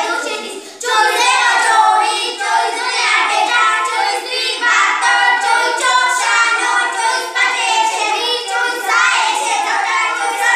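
A small group of children chanting multiplication tables aloud in unison, in a sing-song Marathi recitation, with a short break just under a second in.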